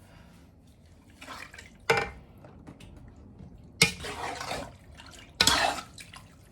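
Kitchen utensils clattering against a cooking pot: three sharp knocks, each followed by a short scraping rasp.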